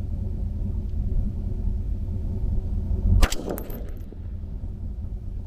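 A single rifle shot from a 6 ARC AR-15 about three seconds in, a sharp crack followed by brief high metallic ringing, over a steady low rumble.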